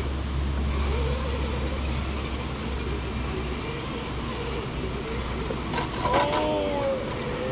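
Traxxas TRX-6 6x6 RC crawler's stock brushed motor and geartrain running under load as the truck strains to climb a rock face.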